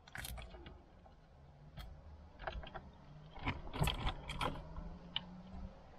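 Plastic wiring-harness connectors and loose cables clicking and rattling as they are handled, with scattered light clicks that are busiest a little past halfway.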